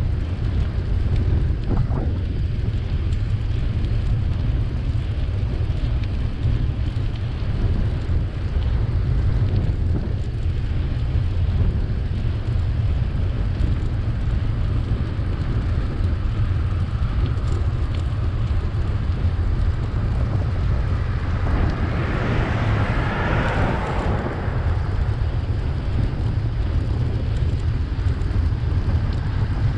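Wind buffeting the microphone of a bicycle-mounted camera as a steady low rumble, with tyre and road noise underneath. About three-quarters of the way through, a vehicle passes, swelling and then fading.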